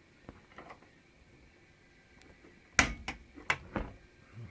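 Four sharp clicks and knocks in just over a second, about three seconds in, after a few faint ticks.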